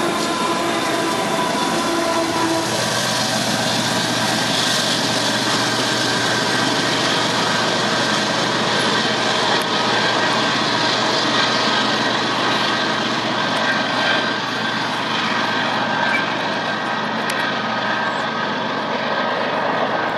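Rear helper diesel locomotives on a loaded coal train, running under power as they pass close and then move away: a constant engine drone mixed with wheel and rail noise. A few steady tones in the first couple of seconds fade as the units pass.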